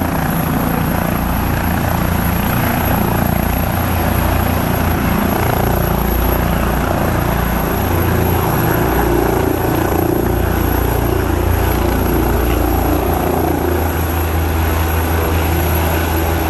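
Air ambulance helicopter, an AgustaWestland AW169, lifting off from a low hover and climbing away. Its rotors and twin turbines run loudly and steadily, with a constant high turbine whine.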